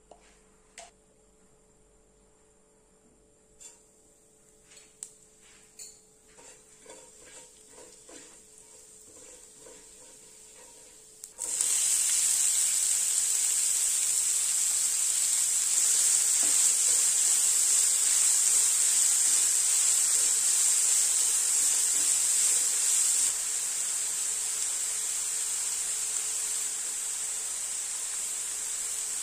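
Faint taps and clinks of a utensil in a pan, then about eleven seconds in a loud sizzle starts suddenly and carries on steadily: food frying in hot oil. The sizzle eases a little near the end.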